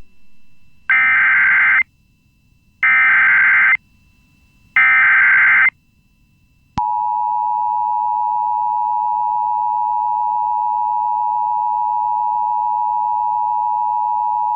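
Emergency Alert System broadcast tones: three short bursts of warbling digital SAME header data, about a second each and a second apart, then, about halfway through, the steady two-tone EAS attention signal begins and holds. The tones announce an emergency alert, here a civil emergency message.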